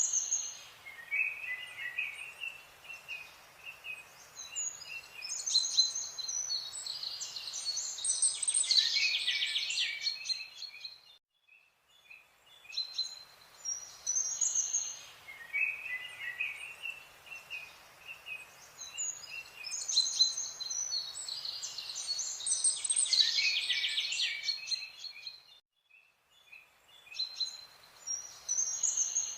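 Birds chirping and trilling in a natural soundscape, high-pitched calls over a faint steady background. The same stretch of birdsong repeats about every 14 seconds, broken each time by a brief drop to near silence.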